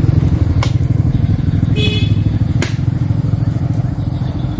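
Diesel engine of a Mitsubishi dump truck idling with a steady low throb. Two sharp knocks stand out, about two seconds apart.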